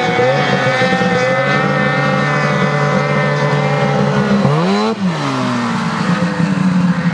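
Snowmobile engine running at a steady pitch, then briefly revving up and dropping back about four and a half seconds in.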